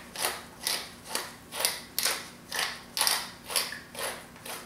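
Wooden pepper mill grinding black peppercorns: a steady run of grinding twists, about two a second.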